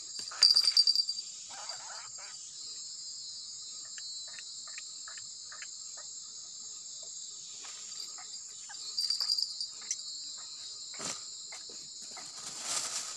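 Steady high-pitched chorus of night insects, with louder buzzing bursts about half a second in and again around nine seconds in. Scattered short clicks and rustles of fishing tackle being handled run beneath it.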